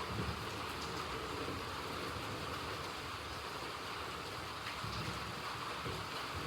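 Steady rain falling, an even hiss with no let-up, with brief low rumbles near the start and about five seconds in.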